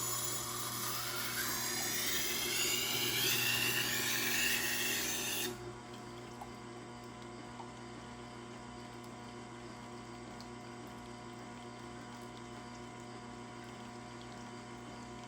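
Tormek water-cooled sharpener running with its steady motor hum. For the first five seconds or so a steel knife blade is pressed against the wet sharpening stone, giving a loud, hissing grind that stops abruptly. After that only the wheel and motor hum on.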